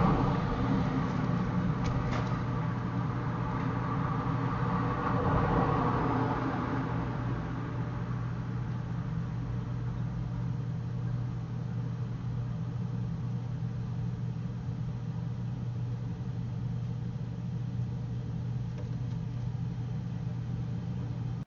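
A steady low mechanical hum, like a motor running, under a wash of noise that is louder for the first six or seven seconds and then settles; it cuts off abruptly at the end.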